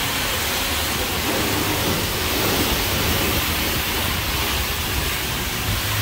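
High-pressure water spray from a self-serve car wash wand, hissing steadily.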